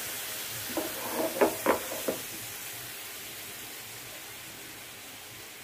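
Sugar and a little water sizzling in a non-stick frying pan as the syrup starts to bubble, a steady hiss that slowly fades. About a second in, four or five short knocks as the pan is shifted on the burner.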